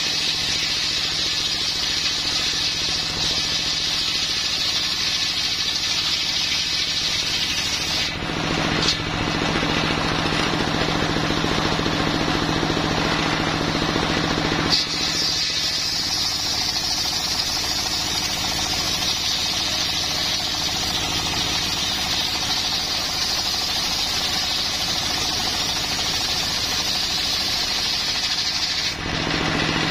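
Home-built circular saw bench ripping a coconut-wood log, its blade cutting with a steady high rushing over the constant drone of the engine that drives it. The cut stops about eight seconds in, leaving the engine and the spinning blade, and a new cut starts about halfway through and runs until just before the end.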